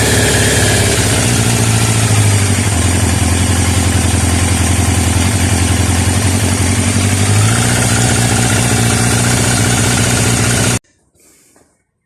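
Yamaha FZ750's inline-four engine running steadily and loudly at close range. It stops abruptly about eleven seconds in.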